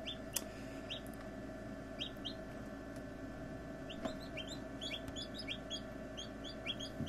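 Hatching chicks peeping: short, high, rising peeps, scattered at first and then several a second from about four seconds in, over a steady low hum.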